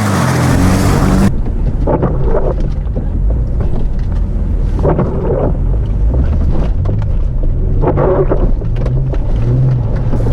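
An off-road 4x4's engine running under load at low speed, its pitch rising and falling as the throttle is worked, with louder surges every few seconds.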